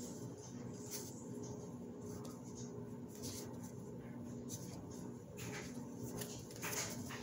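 Sleeved trading cards sliding against each other as they are flipped through one at a time: several soft swishes at irregular gaps of about one to two seconds.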